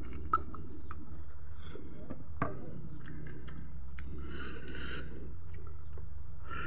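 A person eating by hand, chewing and smacking on chicken and rice, with a couple of sharp clicks, over a steady low hum.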